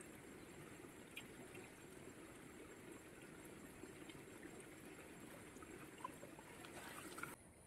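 Faint, steady rush of a flowing river, with a couple of small clicks; it drops away abruptly near the end.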